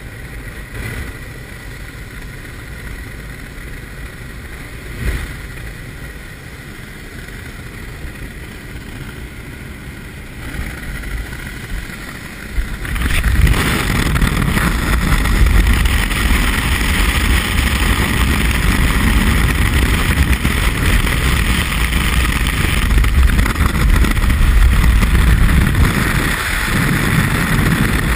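Inside a jump aircraft with the door open: a steady drone of engine and air rushing past the doorway. About halfway through it gives way to much louder steady wind rush on the camera's microphone as the skydivers leave the aircraft and fall.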